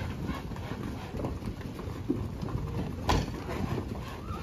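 Hooves of cattle and horses trampling and shuffling on the ground of a corral as the herd is pushed forward, an irregular clatter with one sharp knock about three seconds in.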